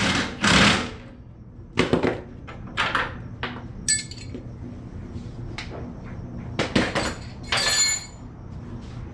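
Impact wrench in short bursts snugging the upper control-arm bolts, with metallic clinks of a wrench and socket against the steel arm. The first burst, at the start, is the longest; the others are brief and spread through the rest, two of them ringing.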